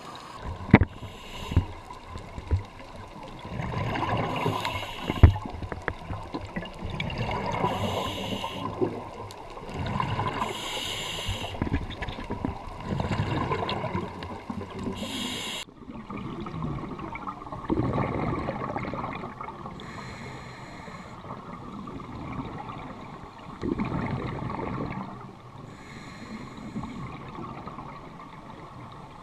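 Scuba diver breathing through a regulator underwater: a hiss on each inhale and a rush of bubbles on each exhale, repeating every two to three seconds. A few sharp clicks come in the first several seconds, and the breathing turns duller after an abrupt change about halfway through.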